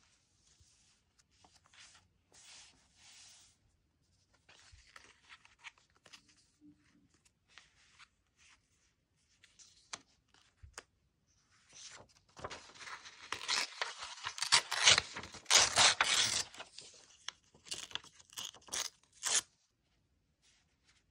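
Paper and sticker handling on a diary page: soft rustling and light taps at first, then in the second half a louder stretch of tearing and crackling paper, with many sharp clicks, that stops shortly before the end.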